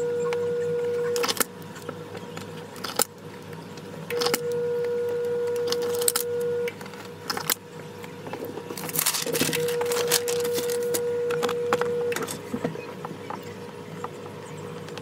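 Strips of heat tape being pulled off the roll and torn, with paper rustling and handling clicks. A steady mid-pitched tone comes and goes three times, each stretch lasting about three seconds.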